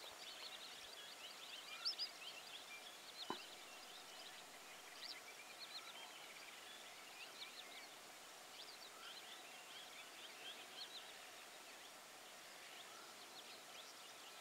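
Faint outdoor ambience of many small birds chirping and calling in short, varied notes, with a single sharp click about three seconds in.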